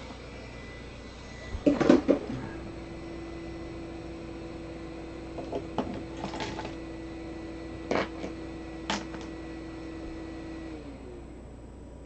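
Handheld hot-air gun used for heat-shrink tubing, set down with a clatter about two seconds in; its fan keeps running with a steady hum, then winds down in pitch and stops near the end. A few light clicks of wires and tools being handled in between.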